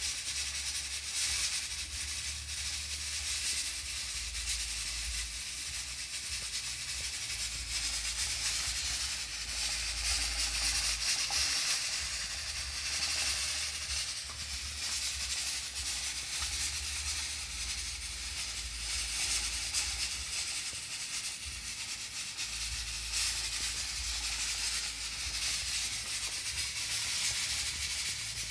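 Hanabishi 8-quart aluminium pressure cooker hissing steadily as steam escapes through its pressure valve, a sign that it is up to pressure. The hiss swells and eases every few seconds over a low rumble that comes and goes.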